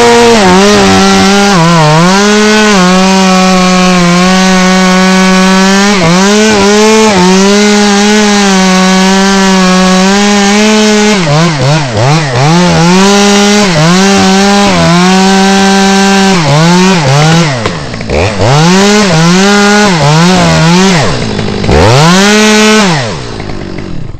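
Stihl 020 top-handle chainsaw cutting through a poplar limb, held at full throttle with small dips in speed for about eleven seconds. It is then revved up and down in short bursts, on and off the throttle, and falls away to a low idle just before the end.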